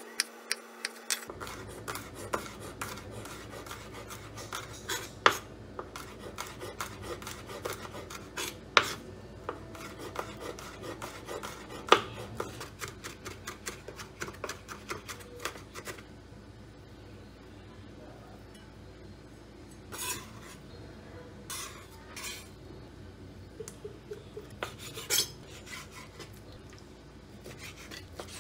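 Chef's knife chopping garlic cloves on a wooden cutting board: a quick, dense run of sharp knocks for about the first half. After that the knocks thin out, with a few longer, softer sounds in between.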